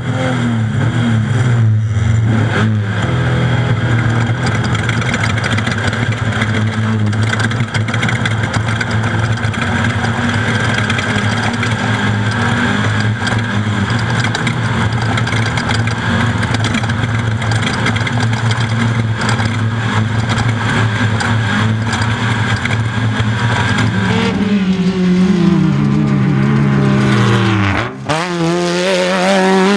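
Off-road race vehicle's engine running hard at high, fairly steady revs. Over the last few seconds the revs drop and climb again, with a short lift-off about two seconds before the end.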